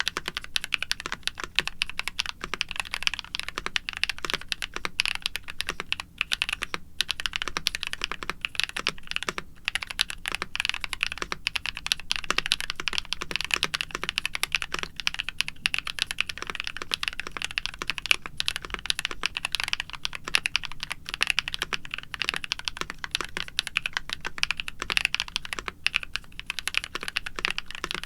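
Continuous fast typing on a NuPhy Halo65 mechanical keyboard with lubed Gateron Night Breeze linear switches, an aluminium plate, foam-dampened case and doubleshot PBT keycaps: a dense run of quick keystroke clacks with brief pauses now and then.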